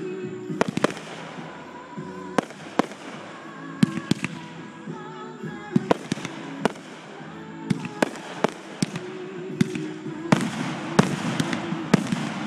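Fireworks going off: about fifteen sharp bangs at uneven intervals, some in quick pairs, over music with long held notes.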